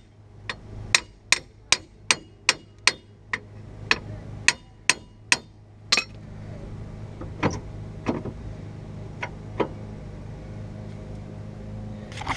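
Hammer blows knocking a 1994 Camaro Z28's front brake caliper back on over the rotor; it is too tight because the caliper piston was not pushed back in. A quick run of about a dozen sharp metallic strikes in the first six seconds, then four more spaced out.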